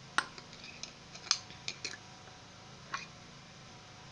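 About five light, sharp clicks and taps of kitchen utensils against a stainless steel mixing bowl, spread over a few seconds, over a faint steady hum.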